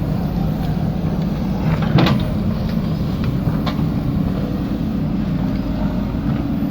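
JCB 3DX backhoe loader's diesel engine running steadily, with a few sharp knocks over it, the loudest about two seconds in.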